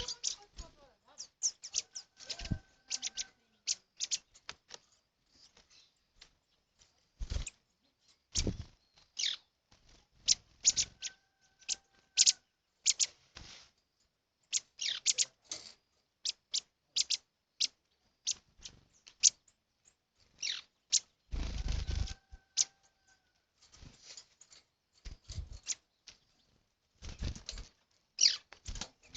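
Small wild birds close by: an irregular scatter of short, sharp chirps and clicks, some with low thuds, and a longer, louder rustle about two-thirds of the way through.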